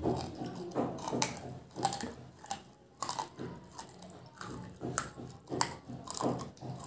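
Close-up mouth sounds of tough desi chicken being bitten and chewed off the bone, with irregular crunches and clicks.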